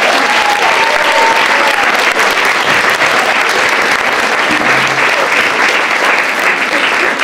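Audience applauding steadily, with a voice or two calling out over the clapping in the first couple of seconds.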